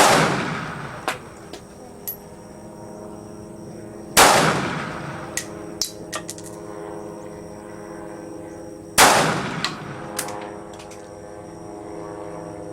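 SIG 556 rifle fired three times, about four to five seconds apart, each shot sharp and loud with a long echoing decay. A few light clinks sound between the shots.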